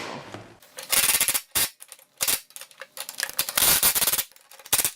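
Cordless impact driver with a 17mm socket hammering a nut tight in several short bursts of rapid clattering impacts, the longest about three seconds in.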